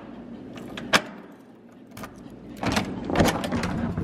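An apartment front door being unlocked and opened: one sharp click of the lock about a second in, then a louder stretch of clatter and scuffing from about two and a half seconds in as the door swings open.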